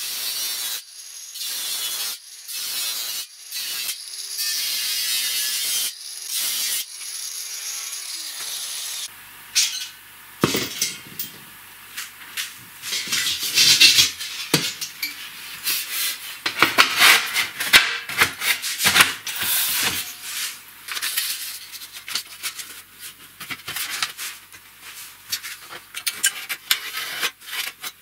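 Angle grinder with a thin cutting disc slicing through a galvanized steel bucket wall in short passes with brief pauses, stopping about nine seconds in. After that, the cut-open galvanized steel sheet is flexed and pressed flat on a wooden bench, with irregular crackles, clicks and rattles of thin sheet metal.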